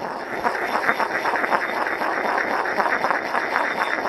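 A stone pestle scraped and ground round and round inside a stone mortar: continuous, gritty stone-on-stone scraping made of quick rough strokes.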